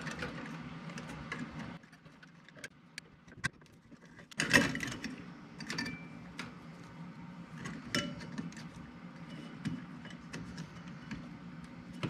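Small clicks and rattles of a plastic strain-relief bushing and wires being handled and fitted into a metal electrical box, with a louder clatter about four and a half seconds in. A low steady hum drops out about two seconds in and returns with the clatter.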